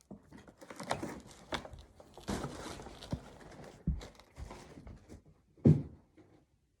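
Clothes rustling and a basket being handled, an irregular run of crinkling and soft knocks with two louder thumps, one near the middle and one about two-thirds through.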